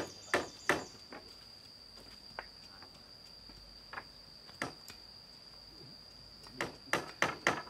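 Hammer blows on wooden slats being nailed to a bamboo ladder frame: a few scattered strikes, then a quick run of four near the end. A steady high-pitched insect drone runs underneath.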